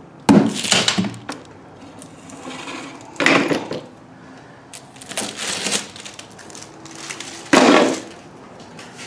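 Wax paper and plastic film crackling and tearing as they are peeled off a freshly epoxied plywood trim strip, in four short bursts.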